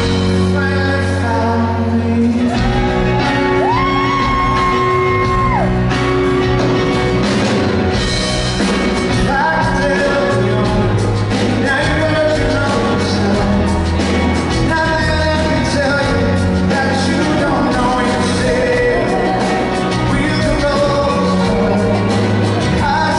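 Live pop ballad: a male lead singer sings with acoustic guitar over a band with drums and keyboards, in the echo of a large concert hall.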